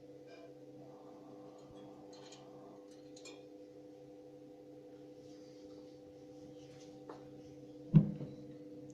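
Burnit PD 10 kW pellet stove running during start-up: a steady low hum from its fan, with a few faint ticks and one sharp knock near the end.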